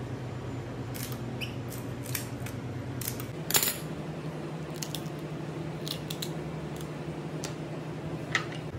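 Cooked king crab leg shell cracking and snapping as it is cut and broken apart by hand at the joints: scattered sharp crackles, the loudest crack about three and a half seconds in and another near the end. A steady low hum runs underneath.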